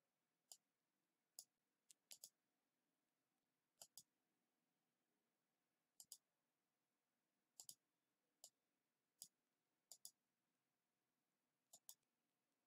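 Computer mouse button clicks, short and sharp, scattered irregularly, several coming in quick pairs like double-clicks, over near-silent room tone.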